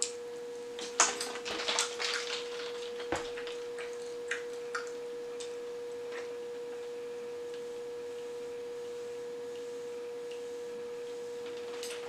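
Chewing of a mouthful of crispy fried chicken, a cluster of crackly, smacking mouth sounds about a second in, then a few scattered soft clicks, over a steady mid-pitched hum that runs throughout. In the last several seconds only the hum is left.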